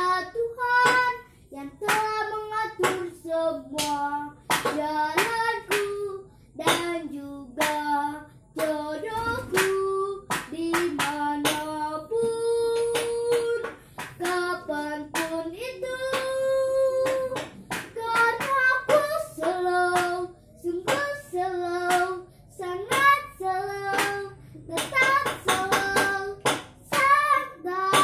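A young girl singing a pop melody unaccompanied, moving between short phrases and a couple of long held notes in the middle. Sharp clicks and taps come through along the way.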